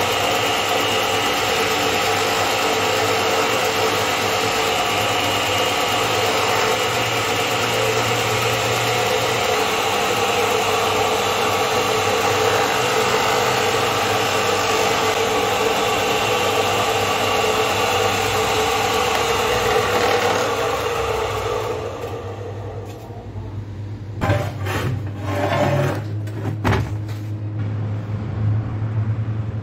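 Electric motor of a homemade belt grinder and polisher running steadily, cutting off about 21 seconds in. A low hum follows, with a few sharp knocks.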